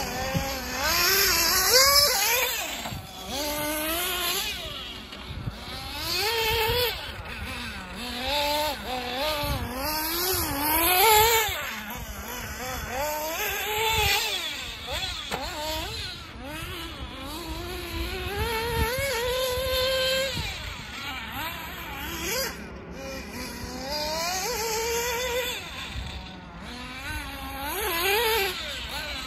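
Xray XB8 1/8-scale buggy's small two-stroke nitro methanol engine revving up and down as the car is driven in laps, its pitch rising and falling every second or two. The freshly rebuilt engine is running fine.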